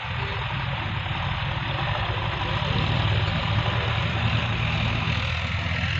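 JCB backhoe loader's diesel engine running steadily with a deep hum, growing a little louder about three seconds in.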